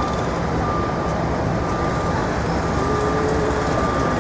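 Steady city street noise: a low rumble of traffic and machinery, with a thin high tone breaking in and out several times.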